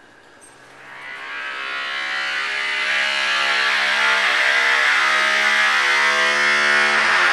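A bathroom stall door's hinge giving a long, loud, pitched groan as the door swings open. It swells over the first couple of seconds, holds nearly one pitch, and stops about seven seconds in.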